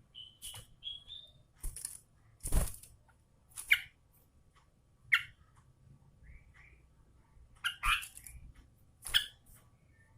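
Yellow-vented bulbul calling in scattered bursts: short bright whistled notes mixed with sharp, harsh chattering strokes, about ten separate phrases with short gaps between them.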